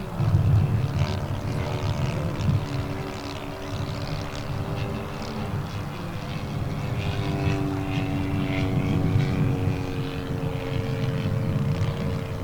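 A 1:3 scale SPAD S.XIII RC biplane's 85 cc four-stroke engine and propeller running steadily in flight, with the pitch shifting a little partway through. A strong low rumble runs under it throughout, in keeping with heavy wind on the microphone.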